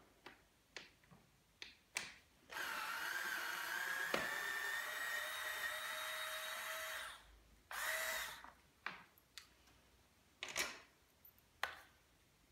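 Cordless electric screwdriver running for about four and a half seconds as it backs out a screw, its motor whine rising slightly in pitch, then a short second burst about three seconds later. Light clicks and taps of the tool being handled come before and after.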